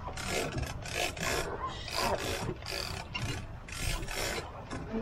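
Fishing line under heavy load from a hooked marlin, giving out in short rasping spurts, about ten in five seconds.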